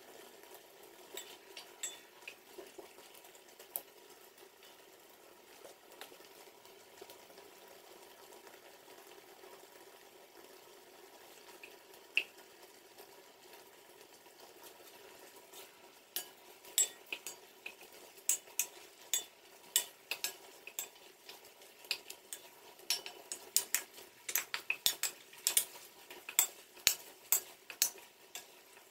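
Apple slices simmering in sugar in a pot, with a faint steady hiss of cooking. From about halfway through, a wooden spatula stirs them, knocking and scraping against the pot in quick irregular clicks that grow denser toward the end.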